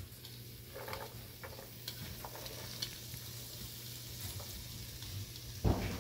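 Diced onions sizzling in melted butter in a frying pan, a steady hiss with small crackles. A brief thump near the end.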